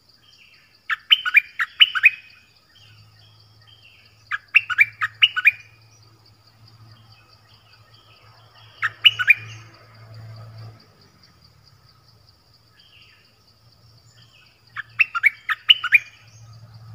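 A songbird calling in four short bursts of three to five quick, sharp notes, with a steady high-pitched buzz underneath.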